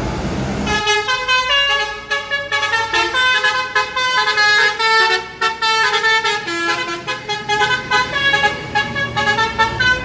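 Intercity bus's basuri (telolet) multi-tone horn playing a fast melody of short horn notes, starting about a second in and running on.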